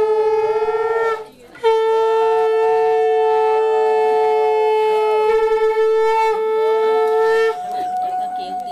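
Conch shells (shankha) blown at a Bengali wedding rite: one steady, loud low blast with a second, wavering higher tone over it. The low blast breaks briefly a little over a second in, resumes and stops about a second before the end, while the higher tone carries on and trails off.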